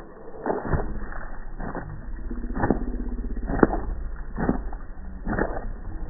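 Slowed-down sound of a wet black dog shaking water off its coat: a low fluttering rumble with a sharp tap about once a second.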